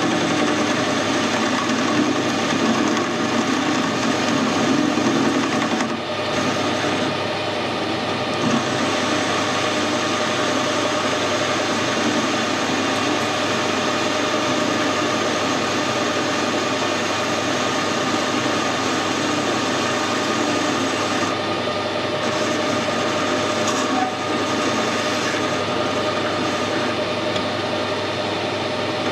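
Metal lathe running and turning down the thread on a hardened steel drill spindle: a steady machining noise, a little louder in the first few seconds.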